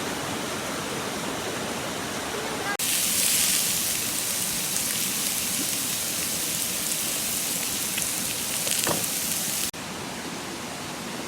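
Mountain stream water rushing over rocks, a steady hiss that changes sharply about three seconds in, becoming brighter and louder, and drops back near the end.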